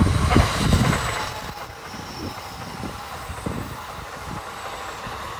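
Kintetsu 80000 series 'Hinotori' electric limited express passing close by with a rushing running noise. Low thumps make the first second the loudest part, and the noise then eases to a steadier rush as the cars go by.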